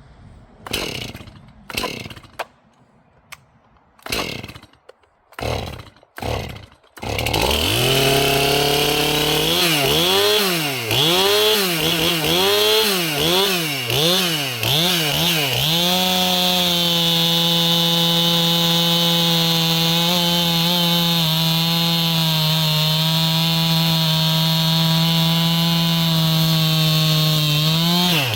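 A 50cc two-stroke chainsaw is pull-started with about five pulls and catches about seven seconds in. It is blipped up and down roughly once a second, then held at steady high revs for about twelve seconds, dropping briefly near the end.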